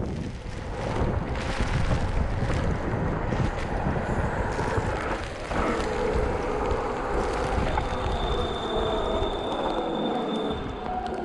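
Wind buffeting an action camera's microphone over the steady hiss of mountain bike tyres rolling on wet tarmac. A thin, steady high whine joins in for about three seconds in the second half.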